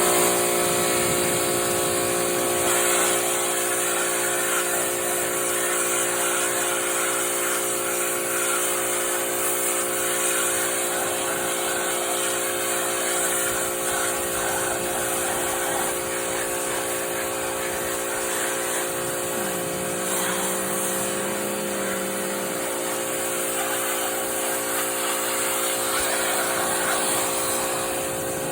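Pressure washer running and spraying water: a steady hiss of the high-pressure spray over the pump's motor hum.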